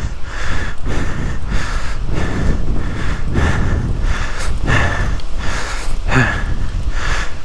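Heavy, rhythmic breathing close to the microphone, a breath about every half second or so, over a steady low wind rumble.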